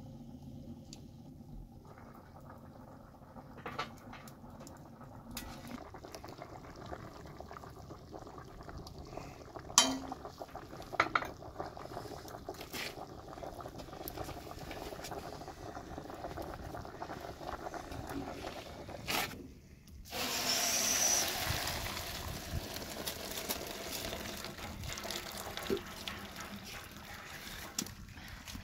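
Water or other liquid being poured and handled while cooking, with a few sharp clinks of utensils. From about twenty seconds in comes a louder, steady hiss.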